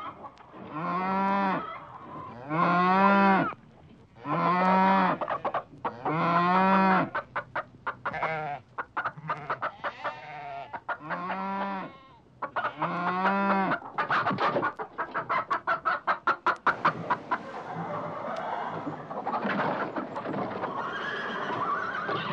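Farm animals calling: a series of about seven drawn-out, pitched calls about two seconds apart. From about 14 s in comes a rapid run of short repeated calls, then a busier mix of calls.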